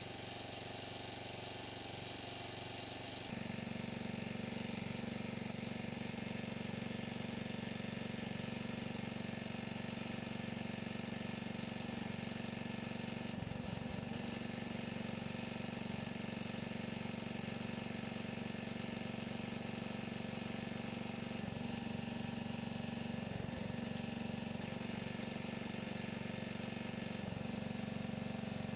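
Small gas engine of a homemade hydraulic log splitter running steadily, louder and closer after about three seconds, its note wavering briefly twice as the splitter is worked.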